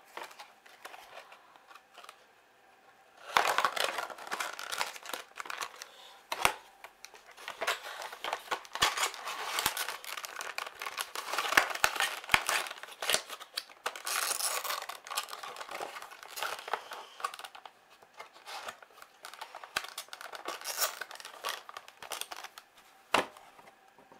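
Crinkling and rustling of plastic packaging being handled, with many small clicks and taps. It starts about three seconds in and goes on until near the end.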